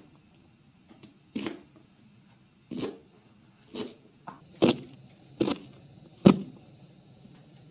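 Kitchen knife chopping green onions on a plastic cutting board: about seven separate knocks of the blade on the board, roughly one a second, the loudest near the end.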